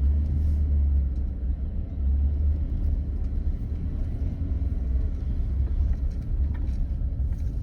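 Steady low rumble that wavers in level, with little above it.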